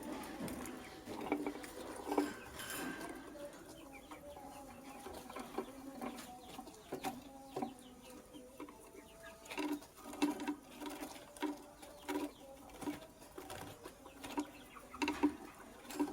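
Birds making short, low calls, repeated about once or twice a second, with a denser run of calls near the end.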